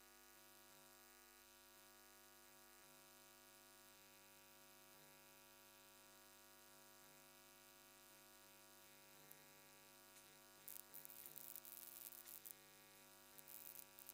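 Near silence: a faint steady electrical hum, with a few faint crackles about three-quarters of the way through.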